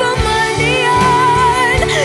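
Filipino pop song: a woman singing a melodic line over a band with a steady beat.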